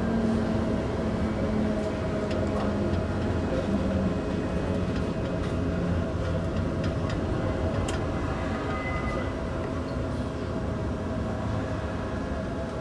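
Steady running rumble inside a moving tram, with faint rattles and clicks.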